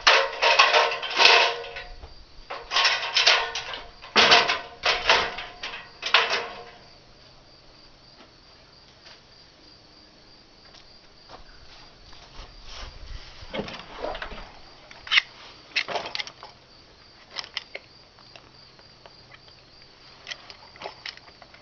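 A run of loud clattering knocks with a short ring to them for the first six seconds or so, then scattered lighter clicks and knocks.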